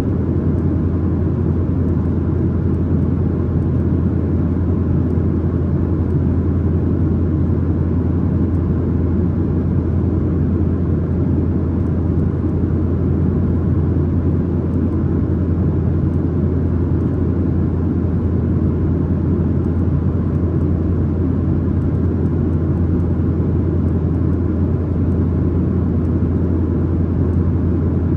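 Steady cabin drone of a Boeing 737-900ER in flight, heard from a main-cabin seat: the CFM56-7B engines and airflow make a constant low rumble with a strong low hum, unchanging throughout.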